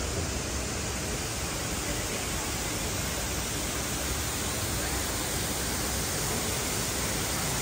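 Steady, even rush of falling water from a large indoor waterfall pouring into a pool, with faint voices under it.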